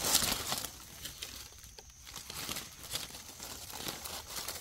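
Dry leaf litter rustling and crinkling as a hand brushes the leaves aside around a mushroom, a louder burst at the start and then soft, scattered crackles.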